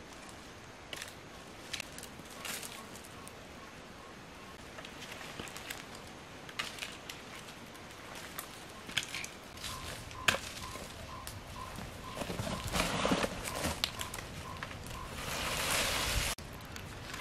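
Dry sticks and leaf litter crackling and rustling as firewood is handled and laid on a small wood fire, with scattered sharp snaps and a denser, louder stretch of rustling about twelve to sixteen seconds in. A faint high chirp repeats a few times a second in the background.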